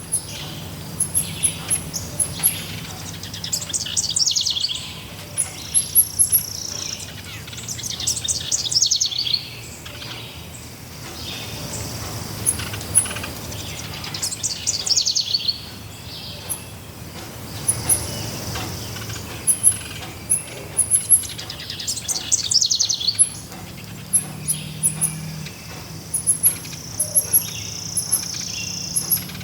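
Forest birds singing. One bird repeats a fast trill that falls in pitch, four times, several seconds apart, while other birds give short, very high chirps.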